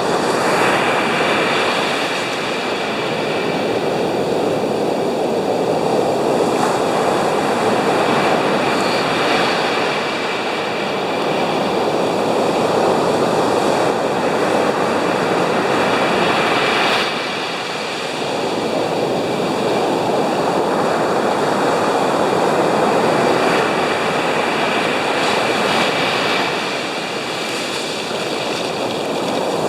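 Stormy Baltic Sea surf breaking on a beach: a loud, continuous rush of waves that swells and eases every several seconds, with wind in it.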